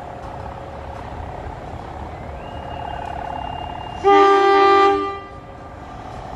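CC 201 diesel-electric locomotive idling, then one loud horn blast about four seconds in, lasting about a second, which signals the train's departure.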